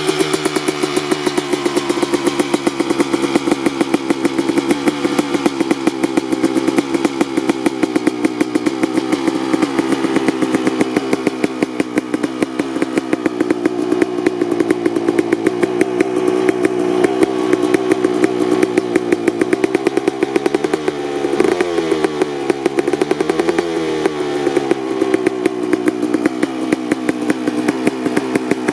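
2003 Kawasaki KX250 single-cylinder two-stroke engine with an FMF Gnarly expansion-chamber pipe, running loud at a fairly steady engine speed. Near the middle, a quick sharp throttle blip is followed by a rise and fall in revs, before it settles back to steady.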